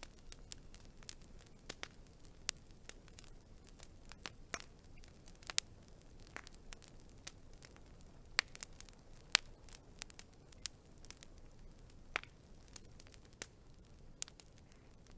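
Wood fire crackling: irregular sharp pops and snaps, several a second, over a faint low hiss.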